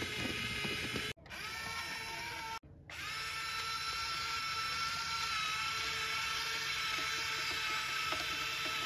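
Electric motor and gearbox of a scale RC crawler whining steadily under load. The sound cuts out briefly twice, about one second and two and a half seconds in.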